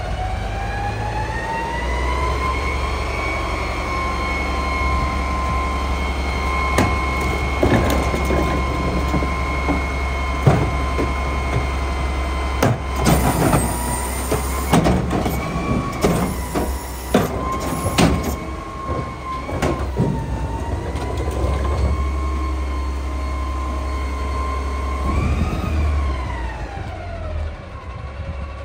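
Autocar McNeilus garbage truck running with its engine held at raised revs, a steady high whine that drops back near the end. In the middle come sharp knocks and bangs as a cart is tipped into the carry can, with short bursts of air hiss.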